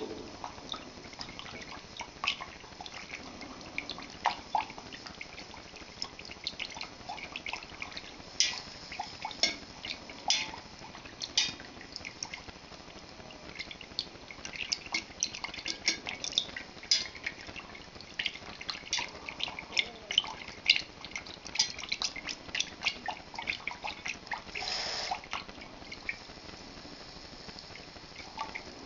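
Coil whisk stirring milk in a stainless steel pot, its wire clicking and tapping against the metal in quick irregular strokes, with the slosh of the liquid. Near the end comes a longer scraping swish.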